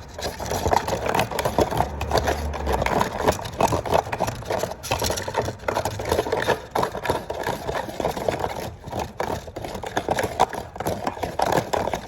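Runny, watery glue slime being stirred fast in a pot: a continuous dense run of quick wet clicks and scrapes.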